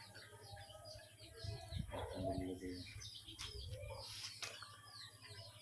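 Birds chirping repeatedly, many short quick chirps, with a few sharp clicks about three and four seconds in.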